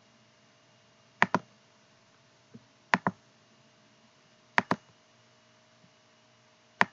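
Computer mouse clicking: four sharp clicks, most of them doubled, about every one and a half to two seconds.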